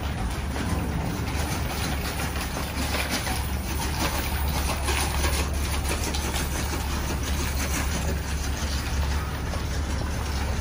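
Steady street traffic noise, a low engine rumble from vehicles on the road.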